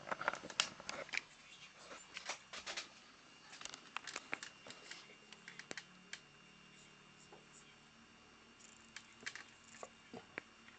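Irregular clicks, taps and short scrapes of small hard objects being handled, densest in the first six seconds, with a few more clicks near the end.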